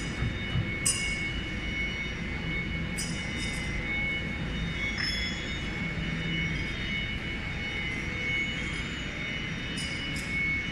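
CNC router spindle running with a steady high whine while its V-bit cutter carves characters into the workpiece, with a few brief high rasps along the way.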